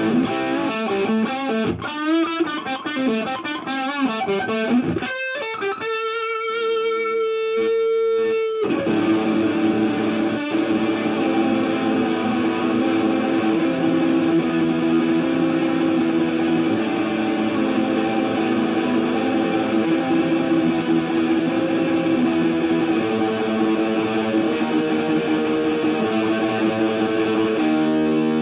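Jackson Fusion Pro electric guitar played through an Orange Crush 35RT combo amp with a 10-inch speaker. It opens with a lead line of bent notes, then one long held note, and from about nine seconds in turns to continuous, dense riffing.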